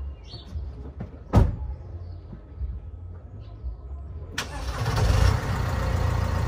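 A single sharp bang about a second and a half in, then the Mercedes Sprinter van's engine starts about four and a half seconds in and keeps running with a steady low rumble.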